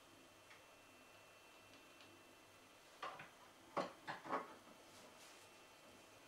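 About five short plastic clicks and knocks in quick succession, about three seconds in, as a six-pin PCIe power connector is pushed into a graphics card; otherwise the room is near silent.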